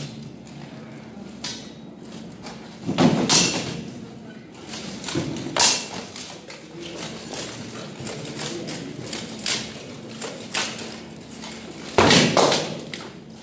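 Armoured sword-and-shield fight: scattered metallic clashes and thuds of swords striking shields and plate armour, with the heaviest exchanges about three seconds in and again near the end, ringing in a large hall.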